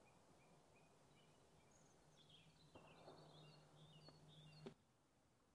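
Faint birdsong from small birds: a string of short high chirps and twittering, over a faint low hum with a few soft taps. It all stops abruptly about three-quarters of the way through.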